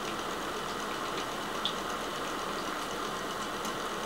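Electric fan running steadily, with one small click about one and a half seconds in.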